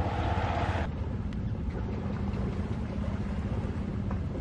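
Steady low motor drone, with a few faint crackles from a small stick campfire.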